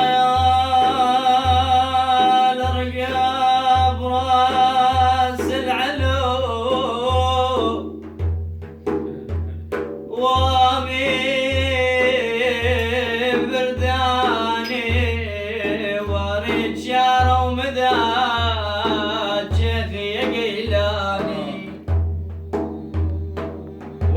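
Sufi devotional music: a deep drum beats a steady repeating rhythm under a bending melodic line. The melody drops out for about two seconds near the middle, leaving only sharp percussion hits, then comes back.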